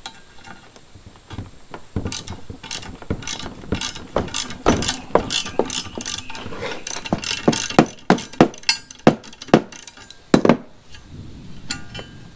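Irregular sharp metallic clicks and knocks, two or three a second, from hand tools working loose an old, stripped sawmill battery-box bracket.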